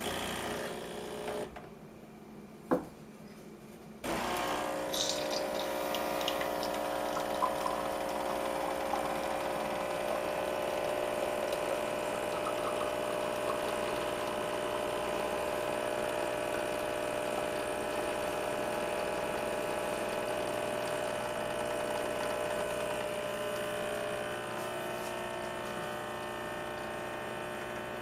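Pump of an illy X8 iperEspresso machine running steadily, pushing water through the capsule to brew, starting with a click-then-hum about four seconds in and easing slightly near the end.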